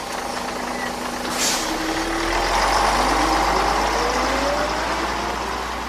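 Street traffic noise with a large vehicle going by, its engine pitch rising steadily as it pulls away. A brief hiss comes about a second and a half in.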